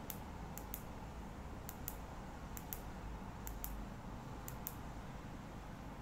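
Astrolux K1 keychain flashlight's switch clicking: one click, then five quick double clicks, press and release, about once a second.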